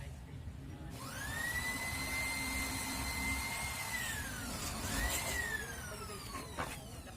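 Handheld power tool's motor whining: it spins up about a second in, runs steadily for about three seconds, winds down, then spins up briefly again and winds down, with a couple of clicks near the end.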